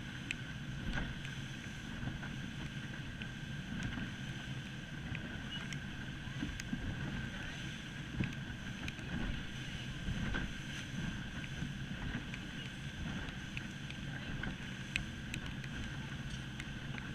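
A rigid inflatable boat's engine running steadily under way, a constant hum with a steady higher whine over it, amid wind and water noise.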